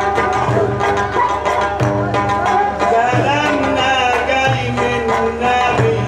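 Egyptian Sufi dhikr music: hand drums beat a steady, repeating rhythm under a wavering, gliding melodic line.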